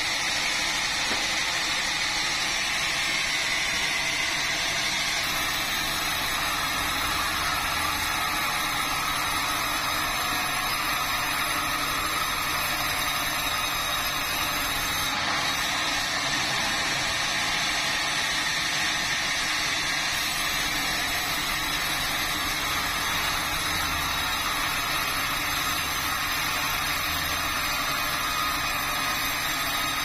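Sawmill band saw running steadily as it cuts through a hardwood beam, a continuous machine drone with a hiss in the high end.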